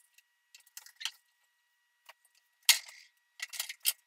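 Hard plastic clicks and knocks from PVC pipe fittings being handled and pushed together on a workbench. They come scattered, with one sharper knock a little past the middle and a quick cluster of clicks near the end.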